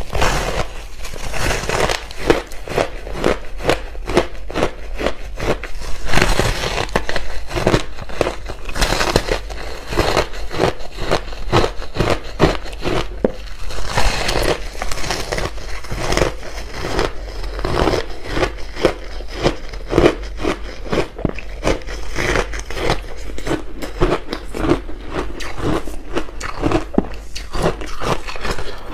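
Close-miked crunching of ice chunks coated in matcha and milk powder, being bitten and chewed: a dense run of sharp cracking crunches with little pause.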